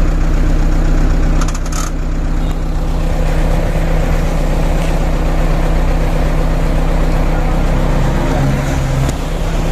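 Medium bus's engine idling steadily, heard from inside the cabin while the bus stands at a stop. There is a brief rattle about one and a half seconds in, and the engine note shifts slightly near the end.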